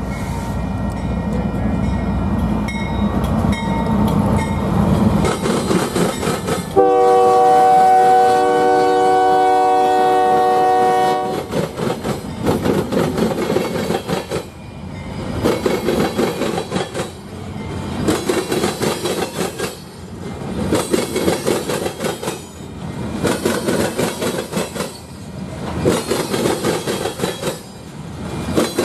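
Union Pacific freight train led by a GE C44AC diesel locomotive: the engines rumble louder as it approaches, then about seven seconds in comes one long blast of its three-chime Nathan K3HA horn lasting some four seconds. After that the hopper cars roll past with a rhythmic wheel clatter, pulsing every couple of seconds.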